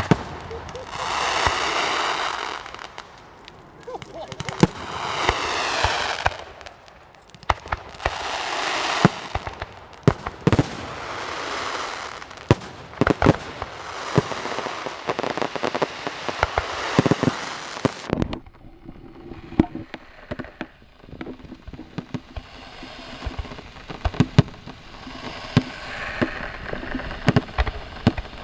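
Fireworks going off: several hissing whooshes of a second or two each, then a dense run of sharp bangs and cracks lasting several seconds, falling quieter to scattered crackles after about eighteen seconds.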